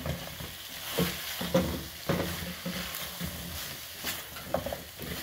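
Wooden spatula stirring chicken wings through a thick sauce in a hot coated frying pan, the sauce sizzling, with irregular light knocks and scrapes of the spatula against the pan.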